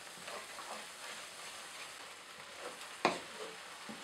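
Thick onion, yogurt and ground-spice paste sizzling in a frying pan as a wooden spoon stirs and scrapes through it. One sharper knock of the spoon on the pan comes about three seconds in.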